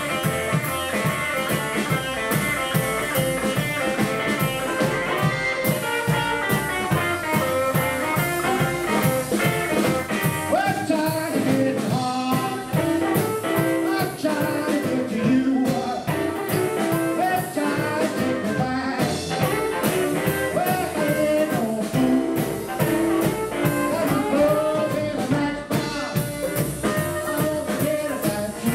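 Live blues band playing: hollow-body archtop electric guitar, upright double bass and drum kit keeping a steady beat, with a man singing.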